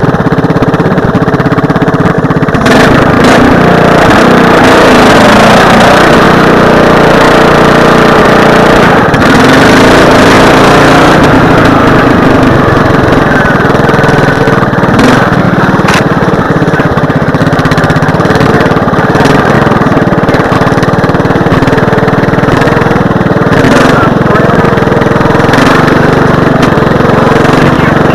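Modified racing lawn mower engine running steadily while the mower drives over a rough dirt track, with occasional short knocks.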